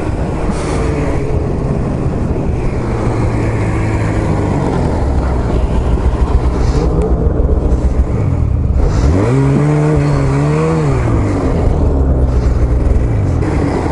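Two-stroke snowmobile engine running under way, its pitch rising and falling with the throttle; it drops away about eight seconds in, then climbs again and eases off.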